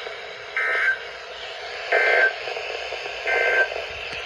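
Emergency Alert System end-of-message data tones: three short bursts of warbling digital data, about a second and a half apart. They signal the end of the alert broadcast. They sit over steady radio hiss.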